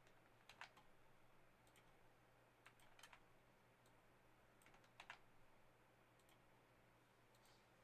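Near silence with faint computer clicks, some in quick pairs, a few times over, over a faint steady low hum.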